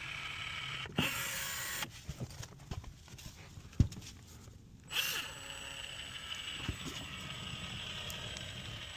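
Caulking gun dispensing Joint & Seam Filler, running steadily for about two seconds. It stops for a few seconds of scattered clicks and a sharp knock, then runs steadily again.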